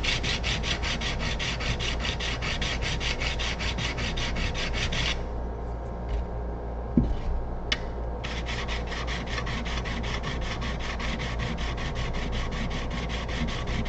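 Steel chisel rubbed back and forth on a sharpening stone in quick, even strokes, lapping its back flat and shiny. The strokes stop about five seconds in, with a couple of light clicks during the pause, then start again.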